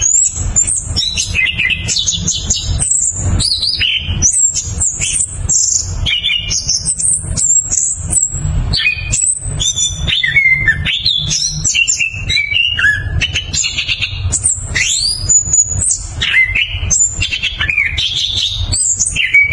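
Caged chestnut-capped thrush (anis kembang) in full song: a long, unbroken run of rapid, varied whistled notes, trills and pitch glides, the continuous rolling delivery birdkeepers call 'ngeroll'. A steady low rumble runs underneath.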